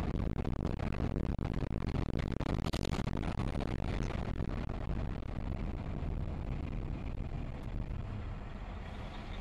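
Road and wind noise from a car driving at highway speed, recorded by a dashcam: a steady low rumble with a gusty hiss, a little quieter in the second half.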